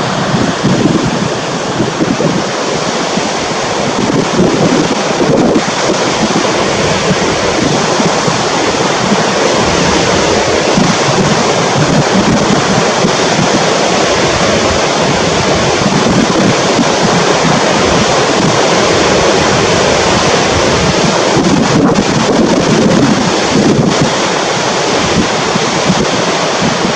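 Steady, loud rush of a mountain waterfall, with wind buffeting the microphone.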